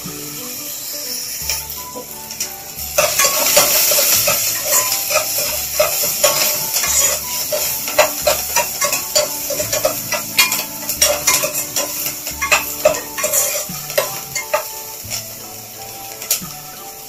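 Chopped onion sizzling as it fries in oil, with a metal spoon stirring and scraping against the enamel pan in quick clicks. The sizzle grows loud about three seconds in, over faint background music.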